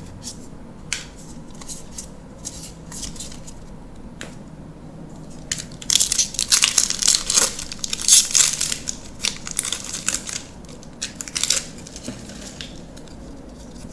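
Foil booster-pack wrapper crinkling and tearing as it is opened, a dense crackle from about six seconds in until about twelve seconds. Before and after it, light scattered clicks of trading cards being handled.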